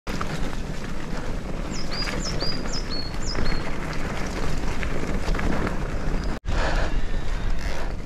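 Cube Stereo Hybrid e-bike rolling over a dirt trail, with wind rushing on the microphone and the bike rattling over bumps. A bird sings a run of about five short high notes, each dropping in pitch, about two to three seconds in. The sound cuts out for an instant about six and a half seconds in, then the riding noise resumes.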